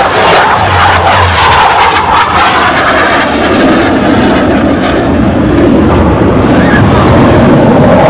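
Aircraft flying past low overhead: a loud, continuous noise that falls in pitch over the first three seconds as it passes, then holds steady and lower.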